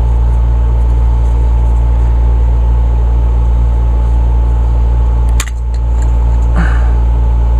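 Steady, loud mechanical hum of a running motor, like a fan close by, with a sharp click about five and a half seconds in.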